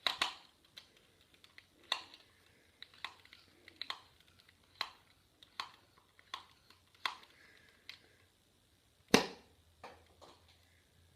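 Sharp clicks and knocks from plastic Nerf blasters being handled, about one a second, with a single louder knock about nine seconds in.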